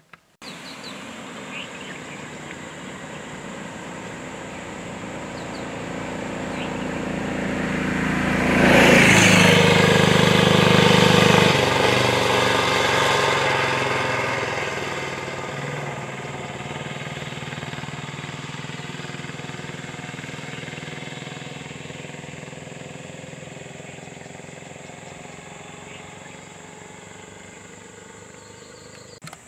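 A vehicle's engine passing close by. It grows steadily louder, is loudest about nine to twelve seconds in, then slowly fades away down the road.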